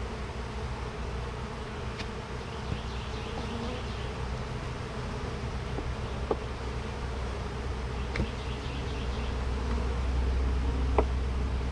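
Honey bees buzzing around an open hive: a steady, continuous hum of many bees, with four brief sharp clicks spread through it.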